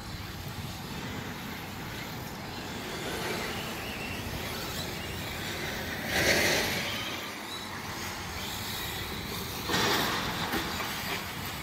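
Electric 1/10-scale off-road RC buggies racing on a dirt track: a steady hiss of motors and tyres on dirt, swelling twice as cars pass close, about six and ten seconds in.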